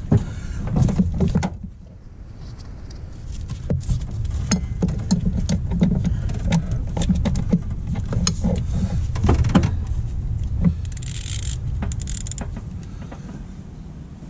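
Scattered light metal clicks and clatter as gloved hands work at the power steering pressure hose fitting in a truck's engine bay, over a steady low rumble, with a brief hiss about eleven seconds in.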